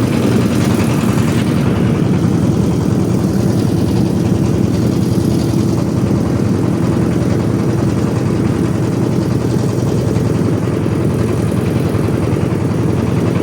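Boat engine running steadily under way, loud and even with a low hum.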